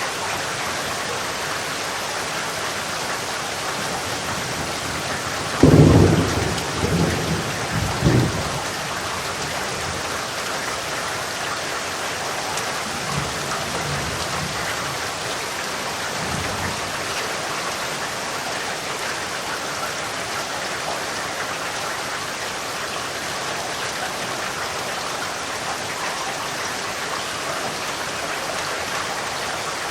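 Steady heavy rain, with a sudden thunderclap about five seconds in that rolls on in rumbles for a few seconds, and a fainter roll of distant thunder around the middle.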